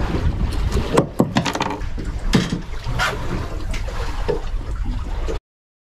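Wind rumbling on the microphone aboard a small boat, broken by several sharp clicks and knocks as a freshly caught queenfish is handled and the jig is worked out of its mouth with pliers. The sound cuts off abruptly near the end.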